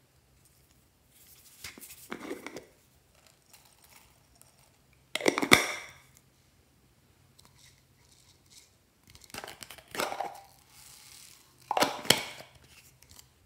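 Slime being handled and mixed: four bursts of noisy, crackly handling sound. The second burst, about five seconds in, is the loudest and has sharp clicks.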